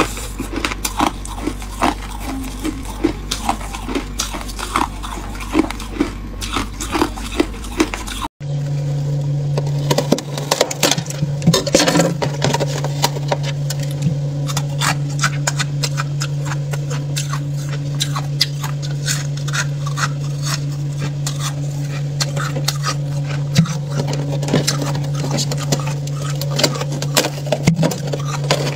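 Close-up crunching of shaved ice being bitten and chewed, repeated every second or less. After a sudden cut, a steady low hum runs under dense crackling and crunching as thick freezer frost is broken off and handled by fingers.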